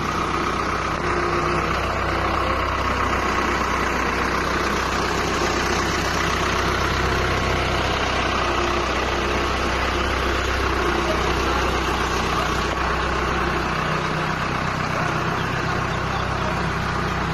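Farm tractor's diesel engine running steadily at a constant idle-like speed.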